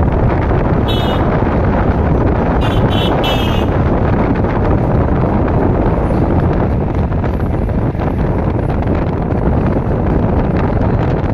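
Wind buffeting the microphone of a phone held out of a moving vehicle's window, over steady road and engine noise. Brief high-pitched chirps come about a second in and again around three seconds in.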